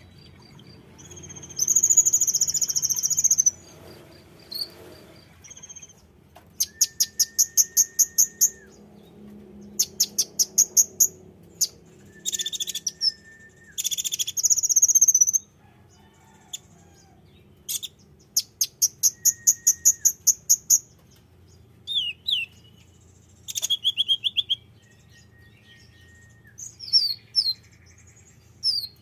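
Konin bird song, used as a lure recording: phrases of very high, rapid chattering trills and longer buzzy notes, repeated with short pauses between them.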